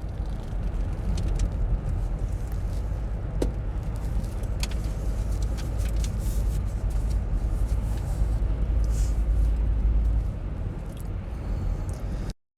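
Car driving on a road, heard from inside the cabin: a steady low rumble of engine and tyre noise with a few faint clicks. The sound cuts off abruptly to silence near the end.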